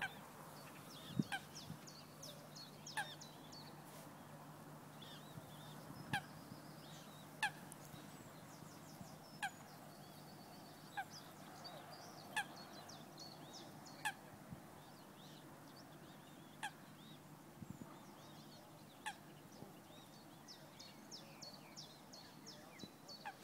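Waterbird calling with a short, sharp honk-like note, repeated about a dozen times at uneven gaps of one to three seconds. Faint rapid high ticking comes and goes in the background.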